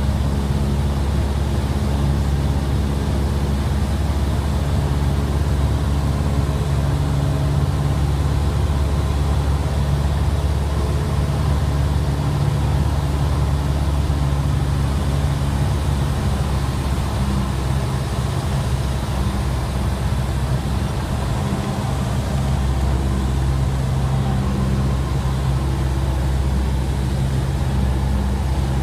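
Cessna 172SP's four-cylinder Lycoming engine and propeller running at steady power in flight, heard as a loud, even drone inside the cabin.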